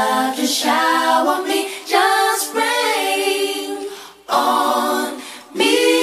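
Female R&B vocal trio singing a cappella in close harmony, with no instruments. The voices drop out briefly about four seconds in and again shortly after, then come back on a held chord near the end.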